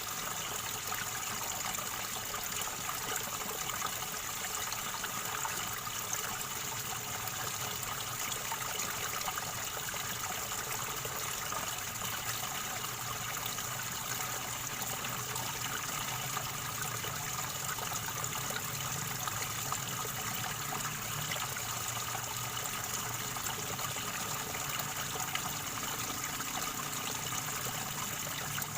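River water gurgling and trickling steadily over stones.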